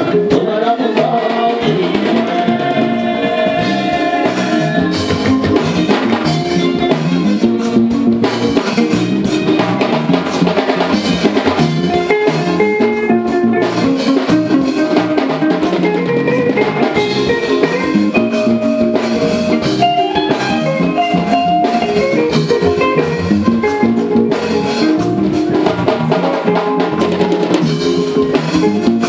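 Live Fuji band music: drum kit and percussion keeping a steady beat under bass guitar, with a singer's voice over the top.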